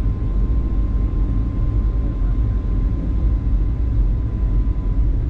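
Steady low rumble inside the cabin of a Boeing 757-200 with Rolls-Royce RB211 engines: engine and airflow noise. A faint thin whine sits above it, bending slightly in pitch.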